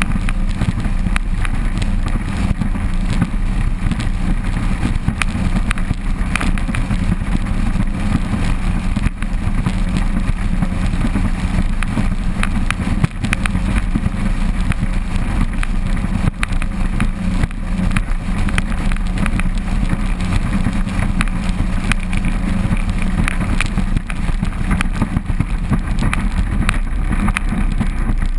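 A 200 hp outboard motor on a 6 m RIB running steadily at cruising speed, a constant low drone, mixed with the rush of wind and water against the hull and the microphone.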